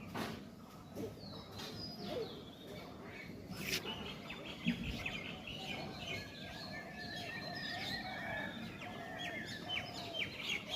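Several birds chirping and calling, with the chirping getting busier about four seconds in.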